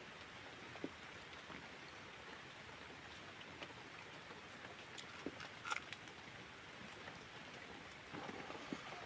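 Soft clicks and squelches of fingers mixing rice by hand on a banana leaf over a steady background hiss; near the end a handful of rice goes into the mouth and wet chewing sounds follow.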